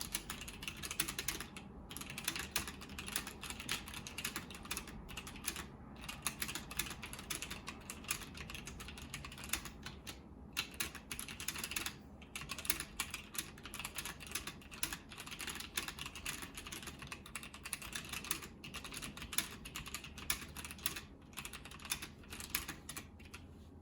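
Fast typing on a budget wireless mechanical keyboard: a dense run of key clicks and clacks, including the larger stabilized keys, with a few brief pauses.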